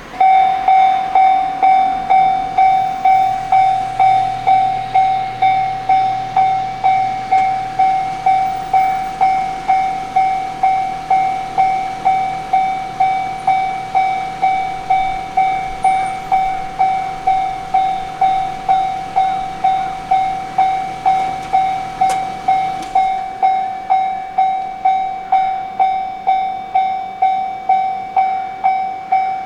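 Japanese railway level-crossing warning bell starting up suddenly and ringing steadily, one ringing ding just under twice a second. It is the signal that the crossing is closing for an approaching train.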